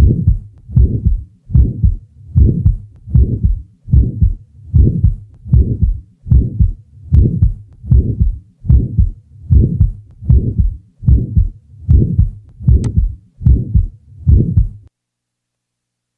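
Recorded heart sounds heard through a stethoscope: an even, steady heartbeat of about 75 beats a minute. It stops about 15 seconds in.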